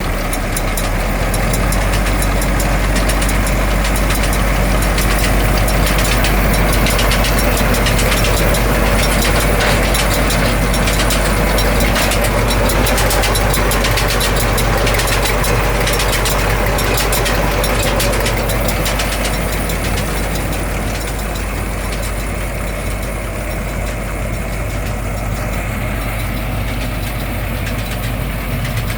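Tractor engine running steadily with a Vermeer 605N round baler hitched behind it, overlaid by a fast mechanical clatter of clicks. The clatter and overall level ease off about two-thirds of the way through.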